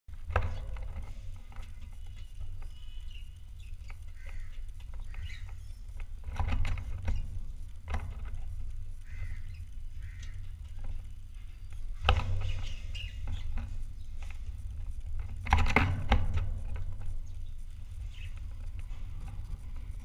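Budgerigar in a wire cage giving a few soft, scattered chirps, with occasional sharp clicks and knocks over a steady low rumble; the loudest knocks come about twelve and sixteen seconds in.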